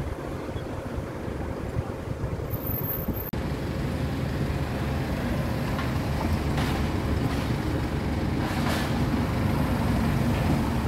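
Wind rumbling on a phone microphone over outdoor street background, with passing traffic. The sound breaks off for an instant about three seconds in, then carries on a little louder.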